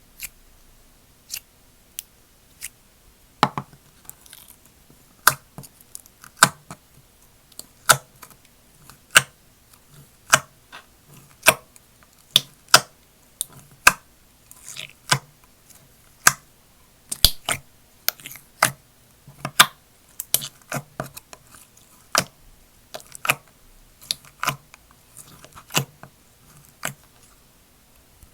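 Slime being pressed and squeezed by hand, giving sharp clicking pops, an irregular one or two a second as air pockets burst.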